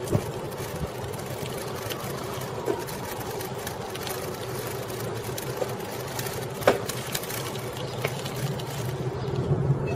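Coker Monster Cruiser bicycle with 36-inch tyres in motion, heard through its bike-mounted camera: a steady mechanical hum, with a few sharp knocks, the loudest about two thirds of the way in.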